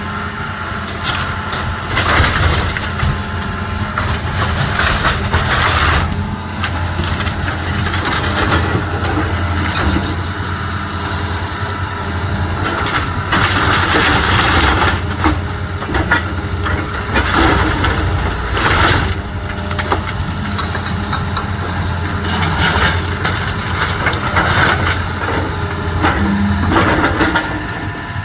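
Wooden house frame being crushed and splintered by demolition machinery, in irregular crunching bursts over the steady low running of the machine's engine.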